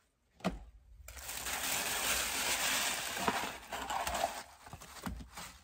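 A thump, then shipping packaging rustling and crinkling for about three and a half seconds, with a few soft knocks as it is handled, fading near the end.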